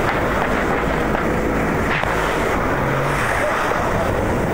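Inshore lifeboat's outboard engine running at speed through rough, breaking water, with heavy wind rush over the microphone.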